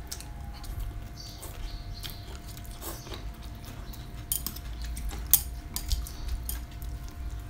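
Close eating sounds: chewing and crunching of rice noodles and fresh raw vegetables, with sharp clicks of chopsticks against bowls, the loudest a little past the middle.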